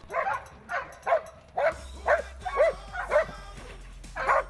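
Dog barking repeatedly, about two sharp barks a second, at a found decoy: the bark that signals it has located the hidden 'criminal' in a Mondioring search exercise.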